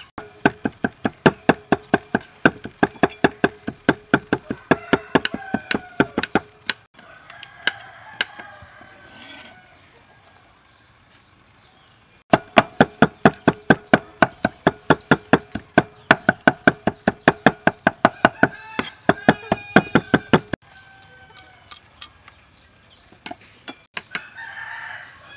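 Cleavers chopping garlic and red chillies on a thick wooden chopping block in quick, even strokes, about five a second, in two runs of several seconds each. Between the runs chickens cluck.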